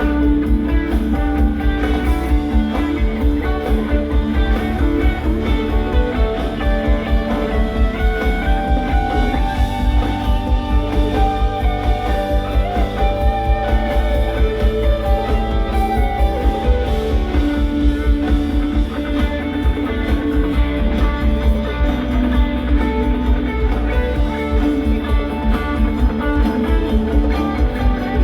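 Rock band playing live: electric guitar lines over bass and drums keeping a steady beat.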